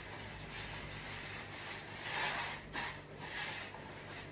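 Hands rubbing and rolling semolina grains in a large bowl: a soft, gritty rustle that swells a little about two seconds in.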